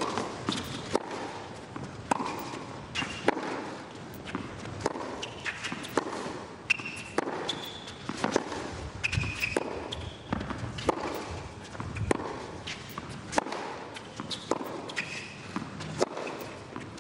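Tennis ball bounced on a hard court between points, a sharp knock about once a second, over a low steady crowd hiss, with a few short high squeaks.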